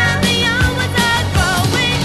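Background pop song: a sung vocal line over bass and drums with a steady beat.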